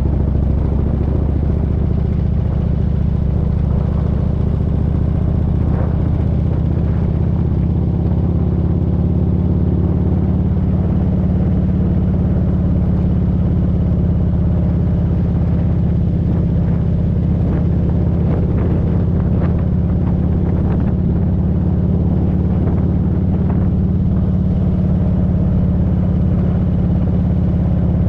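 Motorcycle engine running steadily at an even cruising speed, a constant low drone with a hiss of wind and road noise over it.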